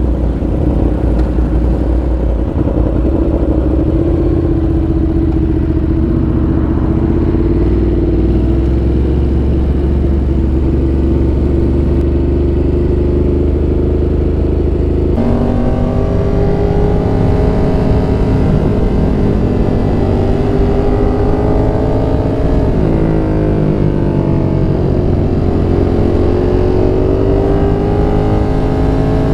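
Motorcycle engine running while riding, its note steady for the first half. About halfway through it changes suddenly to a higher pitch that climbs, dips briefly, then climbs again as the bike slows and accelerates.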